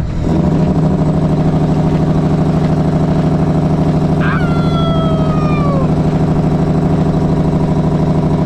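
Diesel semi-truck's newly repaired engine brake (jake brake) firing: a loud, steady, rapid pulsing bark from the engine. A falling whistle passes over it about four seconds in.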